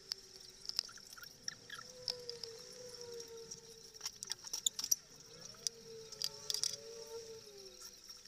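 Eating sounds: irregular sharp clicks and smacks from peeling cooked shrimp by hand and chewing. Under them run a faint, slowly wavering tone and a steady high-pitched whine.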